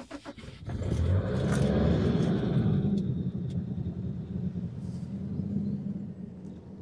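Car engine running, heard right at the tailpipe as an exhaust rumble. It comes up about a second in, is loudest for the next couple of seconds, then settles to a steady idle.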